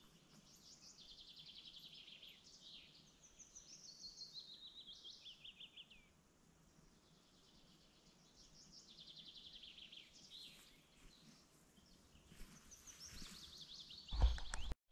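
Songbirds singing: high trilled phrases that step down in pitch, in three bouts with pauses between. Near the end a short low thump, the loudest sound, after which the sound cuts off.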